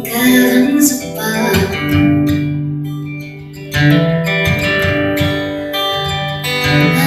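Acoustic guitar strummed live, chords ringing, with a woman's voice singing wordless held notes over it. The chord rings down and fades in the middle, then a fresh strum comes in just before four seconds.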